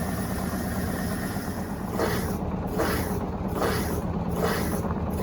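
Electrolux Turbo Compacta 7 kg top-loading washing machine in its final 520 RPM spin: a steady motor hum, with a whooshing surge about every 0.8 s from about two seconds in.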